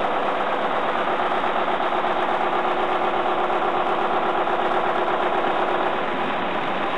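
A 1951 McLaren four-cylinder, 14-litre diesel engine of a 55 kW generator set running steadily. Its firing gives a fast even pulse, and the loudness drops slightly about six seconds in.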